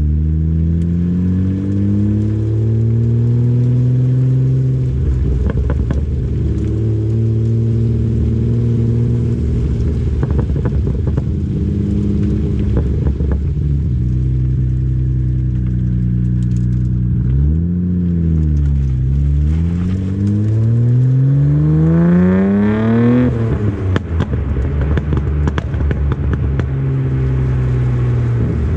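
Nissan Skyline R34 GT-R's RB26DETT straight-six, breathing through a custom 3-inch exhaust, driving on the road. The engine note climbs and levels off several times as it pulls through the gears. About three quarters of the way through, one long steady rise in revs is cut off sharply at a gear change or lift-off, and the engine then settles back to a steady cruise.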